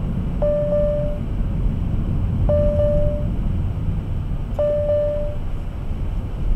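Steady road and engine rumble inside a moving car, with an electronic beep (a short click and then a held mid-pitched tone of under a second) sounding three times, about two seconds apart.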